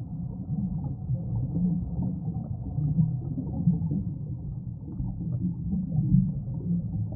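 Muffled low underwater rumble picked up by a camera inside its waterproof housing, with irregular soft bumps and gurgles as air bubbles rise past.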